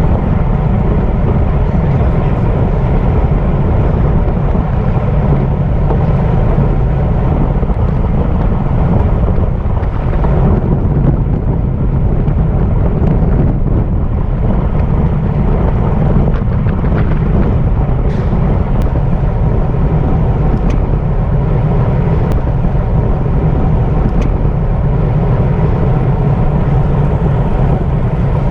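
Wind buffeting the microphone of a camera riding along in a bicycle criterium race: a steady, loud, low rumble with no letup.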